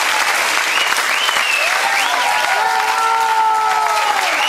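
Audience applauding, with voices calling out over the clapping.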